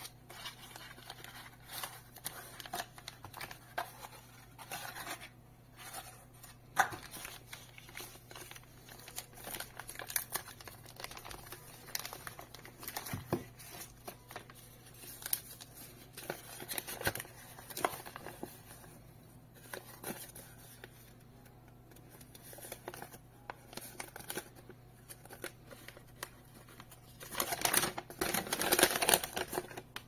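Hands unpacking a small cardboard box: scattered taps, scrapes and rustling of cardboard, a plastic bag and paper. Near the end there is a louder stretch of paper crinkling as the folded instruction leaflet is opened out.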